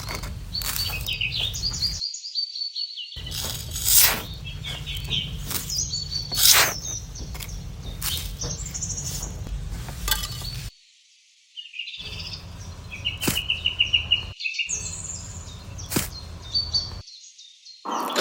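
Small birds chirping in short repeated calls over a low background rumble, with scattered sharp clicks. The sound cuts out abruptly three times.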